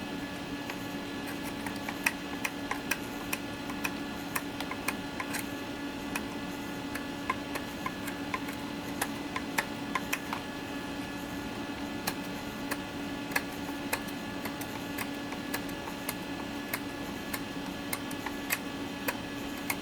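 Knife blade scraping the coating off a circuit board trace to bare the copper: a run of small, irregular clicks and ticks over a steady low hum.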